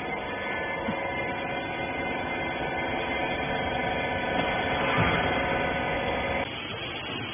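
Hydraulic pump motor of a small rag baler running with a steady whining hum, growing a little louder before cutting off abruptly about six and a half seconds in.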